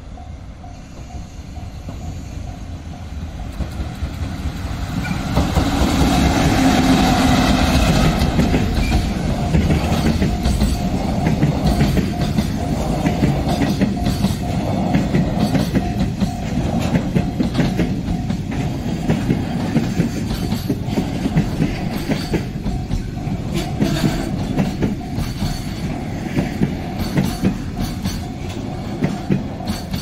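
A train running past close by, growing louder over the first six seconds, then holding steady as its wheels clack over the rail joints in a steady rhythm.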